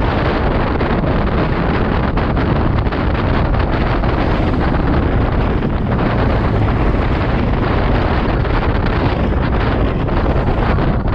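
Steady wind rush buffeting the microphone of a camera on a road bike ridden at about 50 km/h, heaviest in a low rumble.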